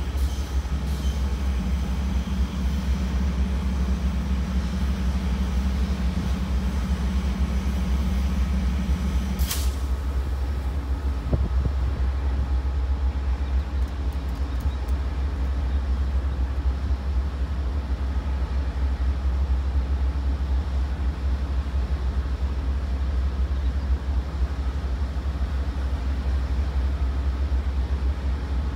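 Amtrak GE Genesis diesel locomotive idling at a standstill, a steady low rumble. A hum over it stops about nine seconds in with a brief sharp hiss.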